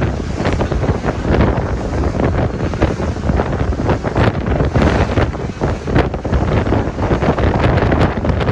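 Strong wind buffeting the microphone on a boat at sea, with an irregular rumble and gusty thumps over the rush of water.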